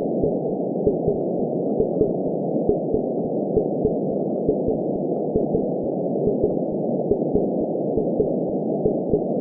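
Heartbeat 'lub-dub' thumps, about one beat a second, over a steady muffled whooshing womb ambience.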